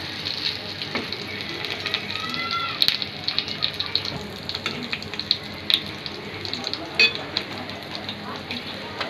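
Silver anchovy pieces and curry leaves shallow-frying in hot oil: a steady sizzle full of small crackles, with a few sharp clicks.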